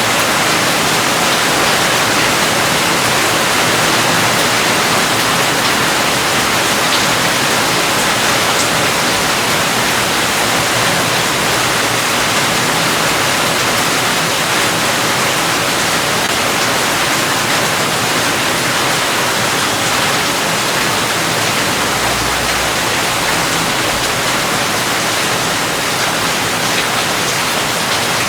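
Rain falling steadily: a dense, even hiss that stays the same throughout.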